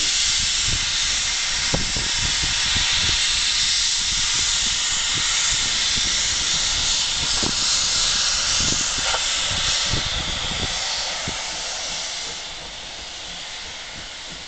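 Steam locomotive 03 1010 letting off steam: a loud, steady hiss that eases off after about ten seconds.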